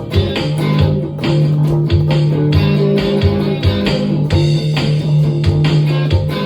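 Live band improvising: electric guitar and bass guitar playing over a steady beat, the bass holding a low note.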